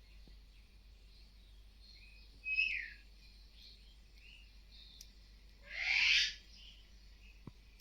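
Birds calling: a short falling call about two and a half seconds in, a louder, harsher call about six seconds in that drops in pitch at its end, and faint chirps between.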